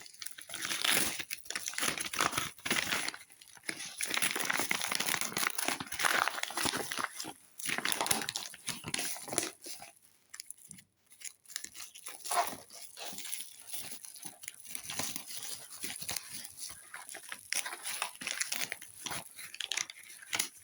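Packaging crinkling and rustling as it is handled and opened to take out booklets. It is louder in the first half and softer after about ten seconds.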